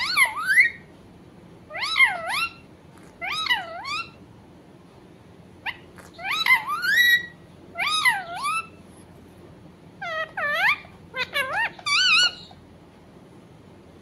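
A rose-ringed parakeet (Indian ringneck) calling: short repeated calls, each dipping and then rising in pitch, in bursts every second or two. The calls stop shortly before the end.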